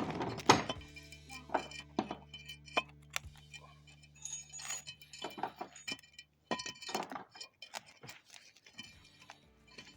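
Metal tools and parts clinking and knocking in short, irregular clicks, the loudest about half a second in, over steady background music.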